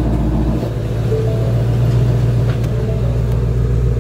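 2020 Shelby GT350's 5.2-litre flat-plane-crank V8, a freshly installed replacement engine, idling steadily with a deep rumble just after start-up, heard from inside the cabin. The lowest rumble settles slightly about half a second in.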